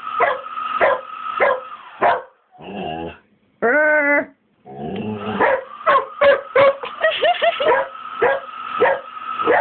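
Dog barking rapidly and repeatedly in agitation at a running hairdryer, whose steady whine runs underneath. About two seconds in the barking breaks off briefly for two longer, drawn-out cries, then resumes.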